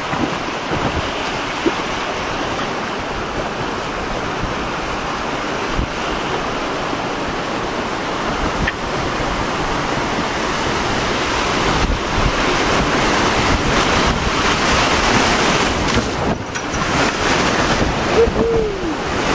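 River rapids rushing and splashing, louder from about two-thirds of the way in as the boat runs into the whitewater, with wind buffeting the microphone.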